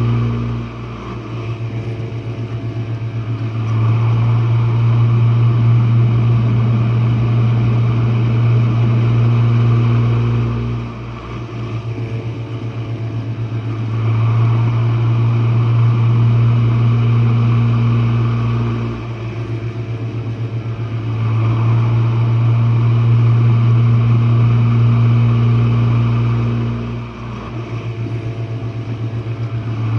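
Jenn-Air dishwasher's wash pump motor running with a steady low hum, recorded from the bottom of the machine. It swells and eases in a repeating cycle of about eight seconds, with a few seconds of a quieter, fluttering sound between each loud stretch.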